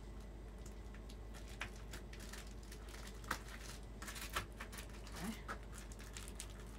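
Foil-faced bubble insulation (Reflectix) crinkling and crackling in scattered small clicks as a sheet is pressed and tucked into a window track.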